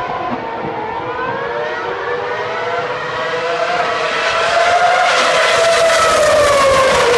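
Ferrari Formula 1 car's engine at high revs as it comes down the straight. The note climbs in pitch and gets louder, then drops in pitch after about five seconds as the car passes, loudest near the end.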